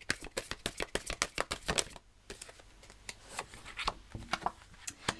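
A deck of Tao oracle cards being shuffled by hand: a rapid run of card clicks for about two seconds, then fewer, separate clicks as single cards are drawn and laid down.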